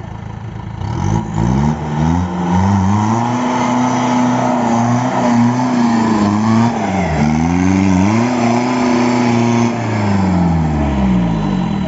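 A 4x4 off-road vehicle's engine revving hard. The pitch rises about a second in and holds high, drops briefly and picks back up about two-thirds of the way through, then winds down near the end.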